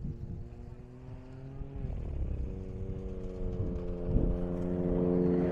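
A vehicle engine running at a steady pitch. The pitch dips slightly about two seconds in, and the engine grows louder toward the end, over a low irregular rumble.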